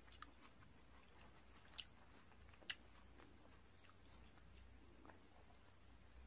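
Quiet chewing of soft bread, with a few faint, sharp clicks; the loudest comes a little under three seconds in.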